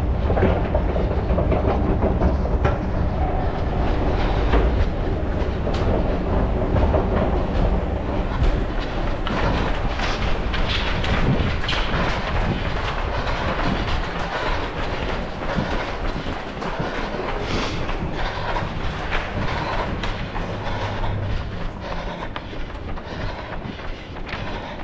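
A runner's footsteps, a rapid stream of footfalls, over a steady rumble from a head-mounted camera in motion.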